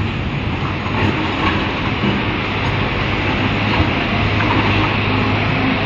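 Heavy machinery running steadily: a constant low engine hum under a continuous rattling, clattering rumble with scattered small clicks.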